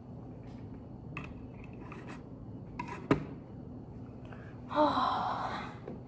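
Plastic Lego pieces clicking as they are handled and pressed together, with a sharper snap about three seconds in. Near the end comes a breathy sigh, the loudest sound.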